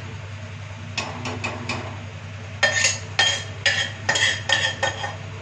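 Stainless-steel kitchen utensils and pots knocking together: a few light taps, then a quick run of loud, ringing metal clanks from about halfway in. A steady low hum runs underneath.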